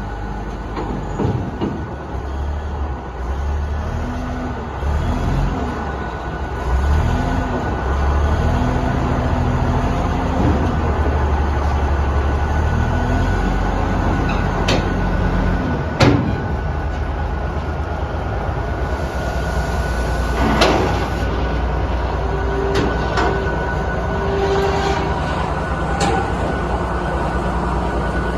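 Shantui SD32 bulldozer's Cummins diesel engine running, its note shifting up and down over the first several seconds as the load changes. A few sharp knocks come through in the second half.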